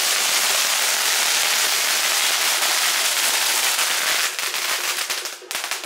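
A string of firecrackers going off in a dense, continuous crackle, thinning to scattered separate pops about four seconds in.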